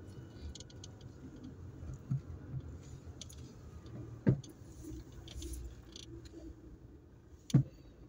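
Car driving slowly, heard from inside the cabin: a steady low road and engine rumble with small clicks and rattles, and two sharp knocks, one about halfway through and one near the end.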